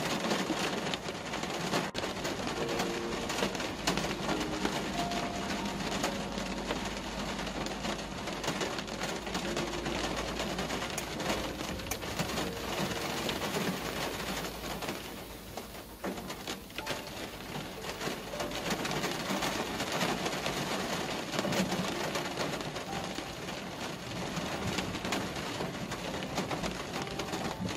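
Rain falling on a car's windscreen and body, heard from inside the car while driving: an even hiss of many small drop ticks, with a brief lull about halfway through.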